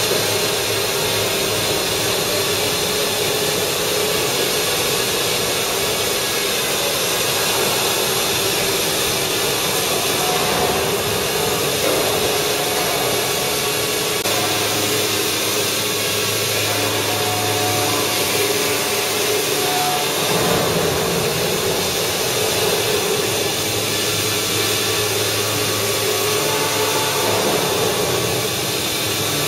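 Spindle of a five-axis gantry CNC router running while its end mill carves a laminated wooden mould: a continuous steady whine with cutting noise, a lower hum joining about halfway through.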